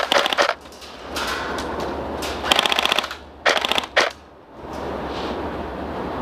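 Airsoft electric rifle firing several short full-auto bursts of rapid clicks, one at the start and three more about two and a half to four seconds in.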